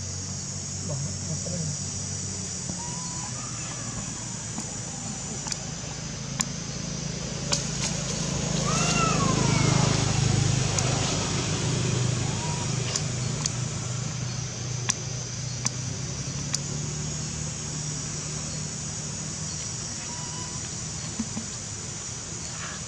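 Outdoor forest ambience: a steady high-pitched buzz throughout, a low rumble that swells for a few seconds around the middle, scattered light clicks, and a brief rising-then-falling call near the middle.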